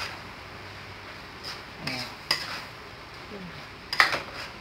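Metal spoon scraping and clinking against a stainless steel pan while stirring a thick grated-coconut and brown-sugar filling, with the loudest clank about four seconds in.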